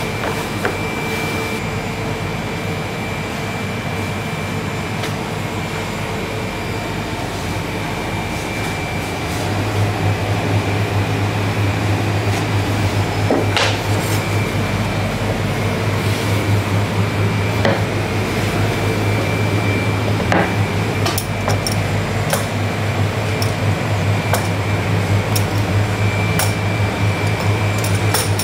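Steady hum of bakery machinery, joined about a third of the way in by a louder low hum as a machine starts up. Scattered light clicks and knocks of metal tools, a knife and a multi-wheel dough cutter, handled on the wooden bench, more frequent near the end.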